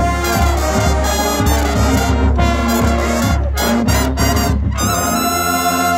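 Marching band playing a loud brass stand tune, with sousaphones, trumpets and trombones over steady drum hits. About five seconds in, the drums drop out and the horns hold a final chord that cuts off at the end.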